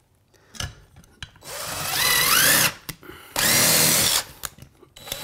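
Cordless DeWalt drill driving a screw at an angle through a steel shelf bracket into a wall stud: two runs of the motor, the first about a second long with its whine rising and falling, the second shorter. A light knock comes just before the first run.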